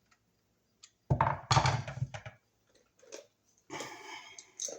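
Hand-tool handling noise while working on a GFCI receptacle, the screwdriver turning down its green ground screw: a loud knocking rub about a second in, lasting about a second, then a shorter scraping rattle near the end.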